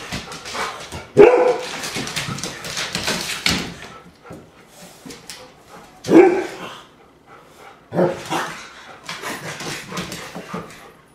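A dog barking in several sharp, loud barks, the loudest about a second in and about six seconds in, with another pair near eight seconds. Between them come scrabbling and clicks of paws on a hardwood floor.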